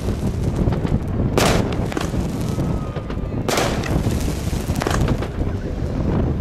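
A 42-shot fireworks cake firing: two shots go off about two seconds apart, the first about a second and a half in, each a sharp bang that fades quickly. A steady low rumble runs underneath.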